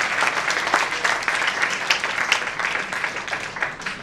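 Audience applause, a dense patter of many people clapping that stops near the end.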